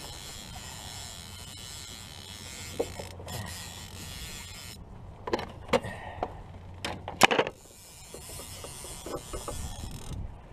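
A steady hiss for the first few seconds, then a handful of sharp knocks and clatters of fishing gear and the landing-net handle against the canoe, the loudest about seven seconds in.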